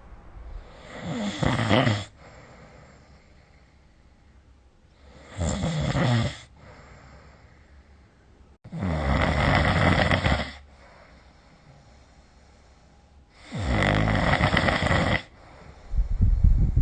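A sleeping person snoring in a slow, regular rhythm: four snores, each lasting one and a half to two seconds and coming about every four seconds, with a fifth starting near the end.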